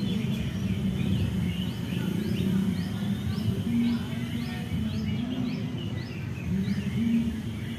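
Oriental magpie-robin (kacer) singing a quick run of short rising notes, about two or three a second, over a steady low rumble.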